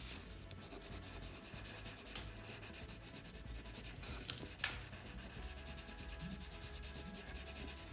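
Coloured pencil rubbing and scratching on paper in quick short strokes, with a few faint ticks around the middle.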